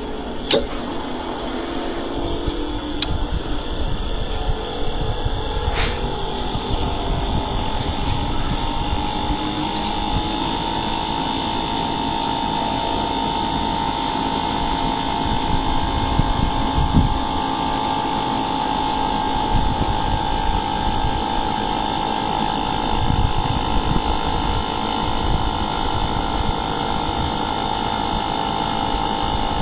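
Inverter air conditioner running with a steady mechanical hum and a constant high tone. A sharp click comes about half a second in, and a steadier mid-pitched tone joins about a third of the way through.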